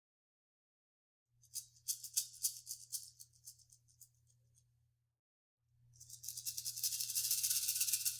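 Rattlesnake's tail rattle sounding its warning buzz in two bouts: an uneven burst about a second and a half in that dies away, then a denser, steady buzz starting past the middle and still going at the end.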